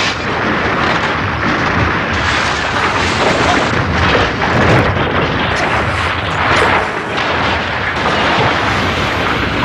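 Film sound effects of a semi-trailer truck crashing into a rocky cliff: a loud, continuous crash and blast noise with several heavier hits.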